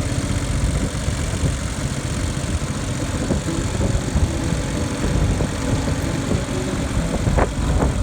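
An engine running steadily, with a few sharp knocks near the end.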